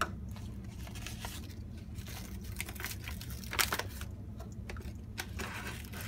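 Coffee beans being scooped with a measuring cup and tipped into a coffee maker's bean hopper: scattered small rattling clicks and crunches, with one sharper click about three and a half seconds in, over a steady low hum.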